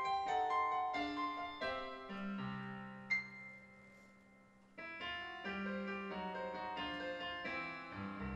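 Stage keyboard set to a piano sound, playing a solo piano intro to a ballad: a phrase of single and chorded notes that ring and fade, a lull about four seconds in, then a second phrase over low held bass notes.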